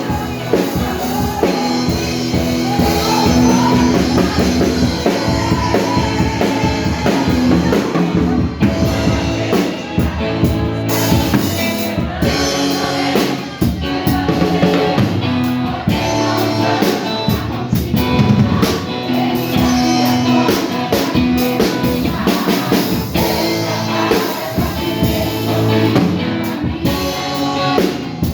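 A live band playing Christian praise music on drum kit and guitar, with singing.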